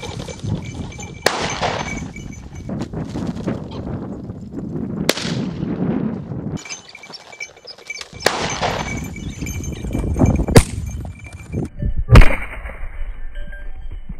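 Shotgun shots fired at flushing game birds: several sharp reports spread through the clip, each with a short echo. The loudest two come near the end, about a second and a half apart.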